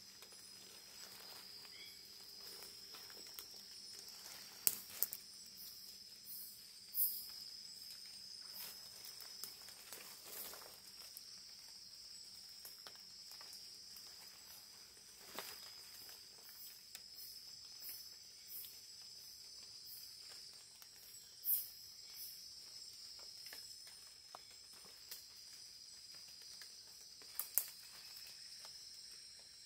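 Steady high-pitched insect chirring throughout, with scattered faint clicks and small knocks, a few louder ones about 4.5, 7 and 21 seconds in.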